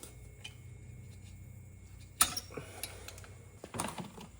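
Pliers working on a dirt bike's exhaust fitting, giving a sharp metallic click about two seconds in and a few lighter knocks near the end, over a low steady hum.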